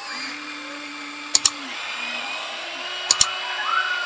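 Huina 1593 RC excavator's electric motors whining as the arm and bucket dig sand, the pitch holding steady and stopping or gliding as each movement starts and ends. Two sharp double clicks, about one and a half seconds in and about three seconds in.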